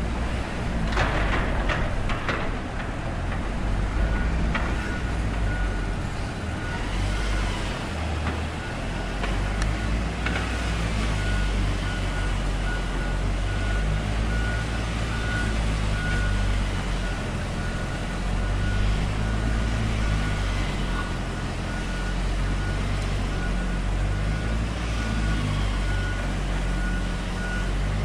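Heavy construction vehicle engine running with a steady low rumble, while a reversing alarm beeps over and over at one pitch from a few seconds in.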